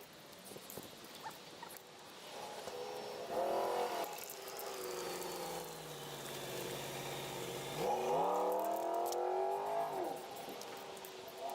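An engine rising and falling in pitch twice, about three seconds in and again about eight seconds in.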